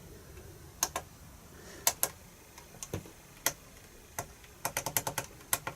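Sharp clicks from a computer mouse and keyboard as rate settings are entered, a few spaced out and then a quick run of about eight near the end.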